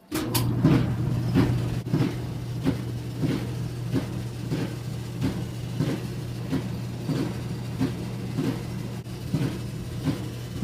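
Roper clothes dryer, made by Whirlpool, running with a steady hum and a knock repeating about one and a half times a second. This is the loud, abnormal noise that calls for a repair.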